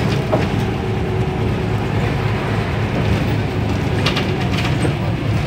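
Inside a 2001 MAN NL222 low-floor city bus: the diesel engine running with a steady low hum, and a few short rattles about four seconds in.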